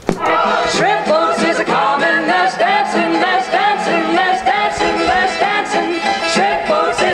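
Old-style pop song with a solo singer and a backing choir, playing loudly on a portable boombox. It starts suddenly, just after a click, and runs on without a break.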